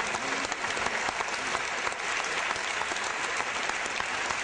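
Audience applauding: many hands clapping in a steady, dense wash.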